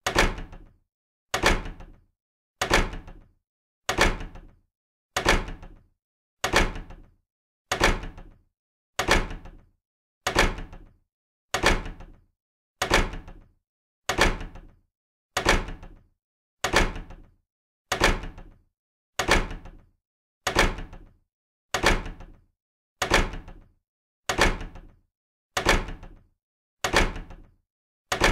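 A door shutting, repeated over and over about every 1.3 seconds. Each shut is a sharp knock with a low thud that dies away in about half a second.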